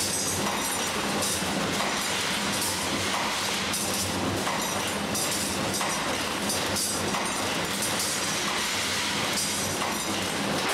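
Industrial machinery running steadily: an even rushing noise with a low hum and irregular light rattling, from the drive of a stainless-steel vessel with a blade over its bottom outlet.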